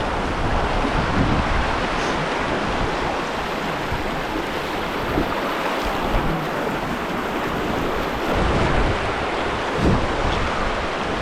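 Steady rushing of flowing river water, with gusts of wind buffeting the microphone.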